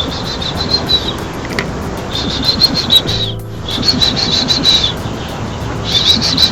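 Small birds chirping in quick repeated high phrases, each lasting about a second, with short pauses between them.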